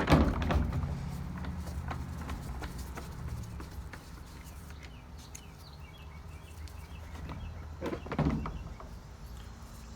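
A Phillips screwdriver backing a screw out of a vacuum cleaner's plastic base, with faint clicks, squeaks and handling noise, and a louder handling sound about eight seconds in.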